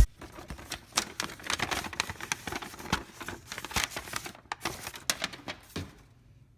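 Irregular light clicks and taps at close range in a small room, going quiet near the end.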